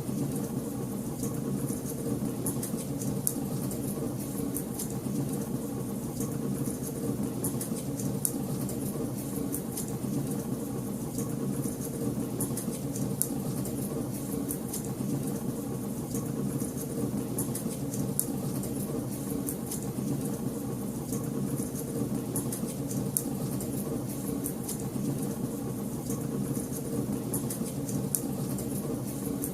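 Wood fire burning in a fireplace: a steady low rush of flames with many small crackles and pops.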